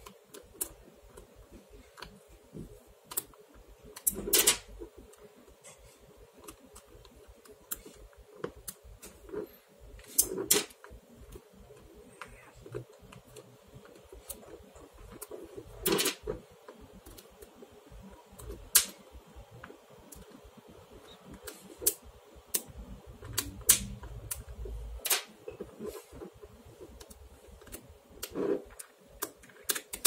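Small metal magnetic balls clicking and snapping together as they are pressed onto and bent into a shape by hand: scattered sharp clicks at an uneven pace, with a handful of louder snaps.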